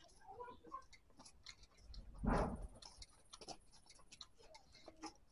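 Eating sounds: chewing and mouth clicks, with fingers mixing rice on a steel plate giving small scattered ticks. About two seconds in, one louder, noisy sound lasts about half a second.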